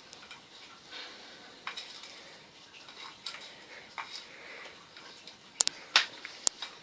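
A spoon scraping and clinking against a small baking pan as cake batter is spooned in: scattered light taps, then several sharp, louder clinks near the end.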